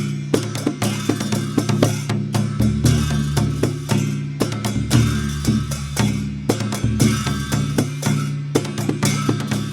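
Dhime, the Newar double-headed barrel drum, played in a fast, dense rhythm of many strokes a second over a steady low drum boom, with bright metallic clashes above it that fit the cymbals of a Dhime Baja ensemble.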